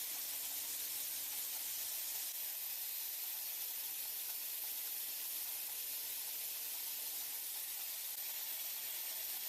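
Steady hiss of factory machinery noise, with a faint low hum that fades out near the end.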